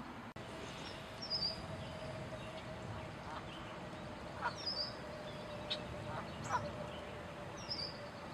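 A bird calling three times, about three seconds apart, each a short high call that falls in pitch, over steady background noise.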